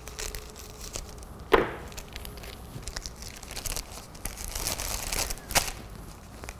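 Plastic freezer bag crinkling as it is cut with scissors and wrapped around a flower pot, with a sharp click about one and a half seconds in and another near the end.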